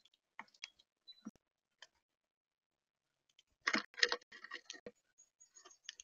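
Small birds pecking at seed on the feeder tray, close to the microphone: irregular sharp clicks and ticks of bills on seed and plastic, with a louder flurry of clicks and rustling about four seconds in.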